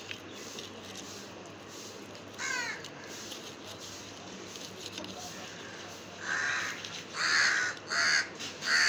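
A crow cawing four times in quick succession in the last few seconds, harsh calls of about half a second each; these are the loudest sounds. Earlier, about two and a half seconds in, there is a brief run of quick chirps.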